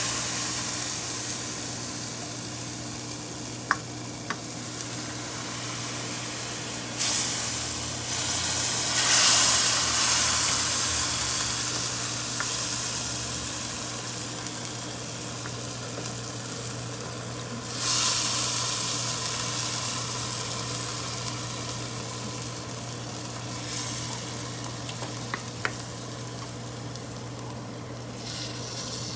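Butter-and-flour roux in a saucepan sizzling as milk and cheese go in, with stirring. The sizzle jumps sharply louder about seven, nine and eighteen seconds in and fades slowly after each.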